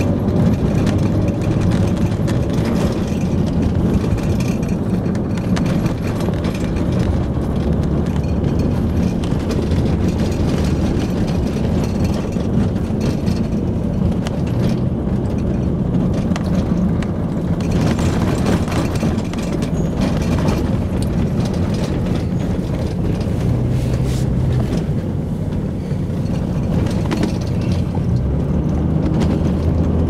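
Moving vehicle's engine and road noise, a steady low rumble whose engine note shifts now and then.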